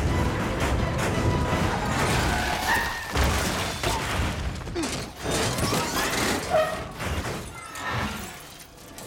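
Action-film sound effects of crashing metal and shattering glass, with repeated impacts and short high squeals, over background music. The crashing thins out near the end.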